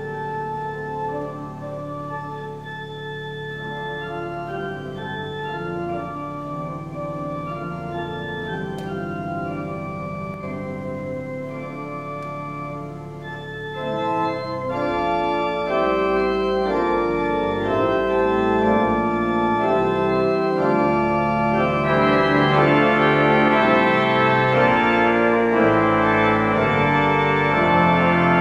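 Church pipe organ playing slow, held chords over a sustained bass note. About halfway through it swells louder and fuller with a deeper bass, and it grows brighter again near the end.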